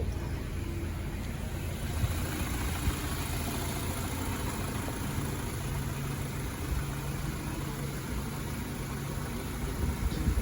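A 2013 BMW X3's engine idling steadily.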